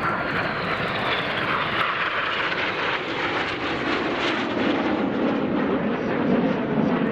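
Jet engines of the Red Arrows' BAE Hawk T1 aircraft passing by: a steady rushing jet noise whose pitch falls as the jets go past.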